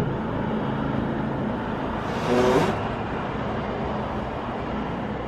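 Steady low rumble of engines and traffic, with a vehicle passing close by about two seconds in, briefly the loudest sound.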